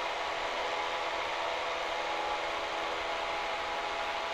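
Cessna 172's piston engine and propeller droning steadily in the cockpit at climb power during a go-around climb-out.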